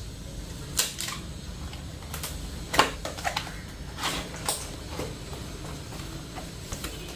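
Packaging of a wireless keyboard and mouse set being opened and handled: scattered clicks, taps and crinkly rustles, the sharpest snap about three seconds in.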